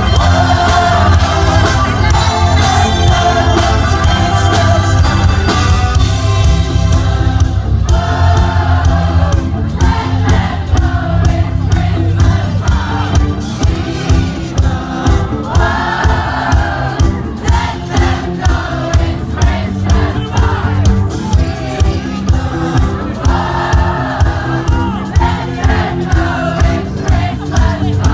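Loud music with singing over a heavy bass line; a steady beat comes in about halfway through.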